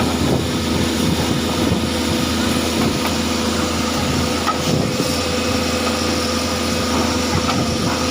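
Heavy machinery engine running steadily at a constant speed.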